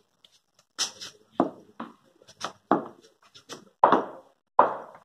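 A run of about ten sharp knocks at an irregular pace, each with a short ring-out, starting about a second in and growing louder toward the end.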